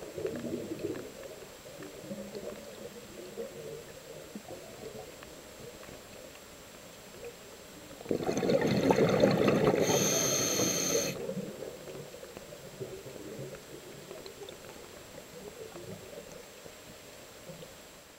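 Underwater sound through a diving camera's housing: a low, muffled rush of water movement, with a loud burst of scuba exhale bubbles about eight seconds in that lasts roughly three seconds.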